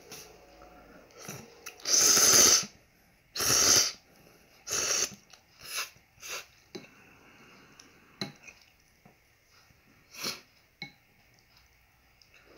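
A person slurping instant noodles from a bowl of spicy broth: a run of slurps, the two loudest and longest about two and three and a half seconds in, then shorter, quieter ones.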